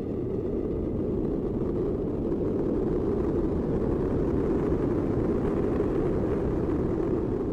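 Dark ambient film-score drone: a low, noisy rumble without a clear melody, swelling up and then beginning to ease off near the end.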